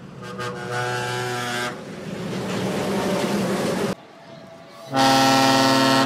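A multi-tone train horn sounds a chord for about a second and a half, trailing into a rushing noise that cuts off about four seconds in. After a short lull, a monorail's horn gives a louder chord about a second long near the end.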